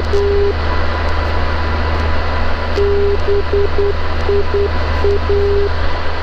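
Morse code ident of the Bournemouth NDB 'BIA' heard through the ADF receiver: a steady mid-pitched tone keyed in dashes and dots, the tail of one repetition at the start and then a full dash-dot-dot-dot, dot-dot, dot-dash (B-I-A) from about three seconds in. It sits over a loud even radio hiss, with the aircraft's engine as a steady low drone underneath.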